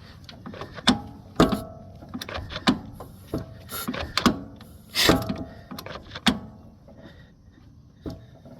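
2014 Ural M70's boxer-twin engine being turned over with the starter removed: irregular mechanical clanks and clicks, some ringing briefly, with air puffing from the intake hose, which is open because the air filter is off. The engine turns freely, not seized.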